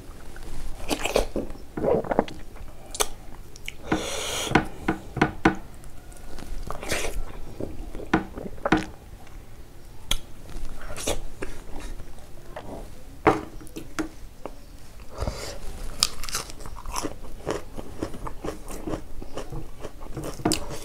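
Close-miked eating sounds of a man eating dhido and pork trotter curry by hand: chewing and biting with many irregular wet clicks and crunches.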